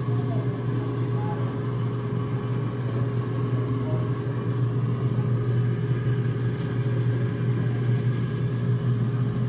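A steady low mechanical hum with a faint constant higher tone above it, unchanging throughout.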